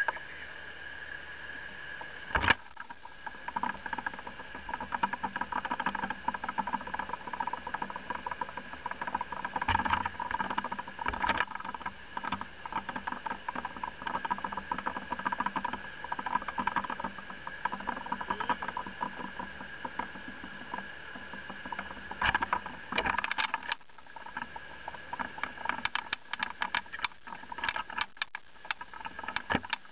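Boat motor running steadily as the boat cruises along, with frequent crackling bursts of wind buffeting the microphone.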